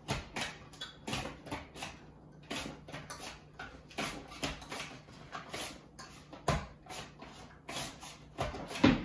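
A potato being pushed across a Tupperware mandoline's large julienne blade to cut cubes. Repeated short scraping strokes come about two or three a second, with a brief pause about two seconds in.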